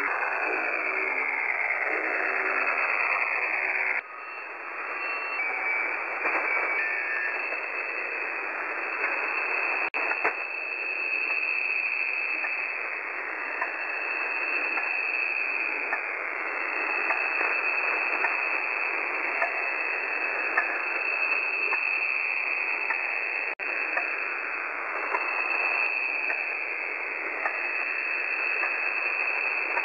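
Shortwave radio reception at about 6911 kHz: a stepped-tone signal called 'The Alarm' cuts off abruptly about four seconds in. Receiver hiss then continues, with faint falling sweeps from the 'Stalingrad Ticking Clock' signal that replaces it.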